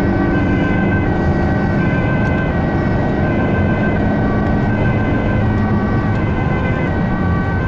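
Ambulance siren sounding in alternating tones, heard from inside the moving ambulance over engine and road noise.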